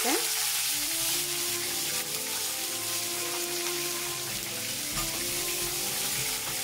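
Hot sunflower oil sizzling steadily in a frying pan as a tempering of lentils, cashews and whole spices fries, with soft background music underneath.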